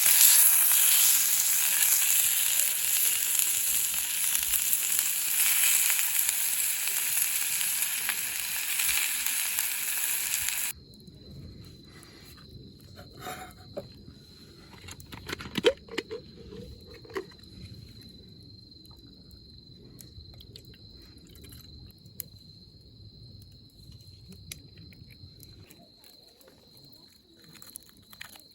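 Food sizzling loudly in a pan, cutting off abruptly about eleven seconds in. Then a much quieter stretch with a steady high insect trill and a few scattered clicks and knocks.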